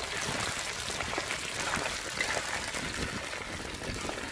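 Battered pork pieces deep-frying in fresh hot oil in a wok: a steady sizzle full of fine crackles as a ladle turns the pieces.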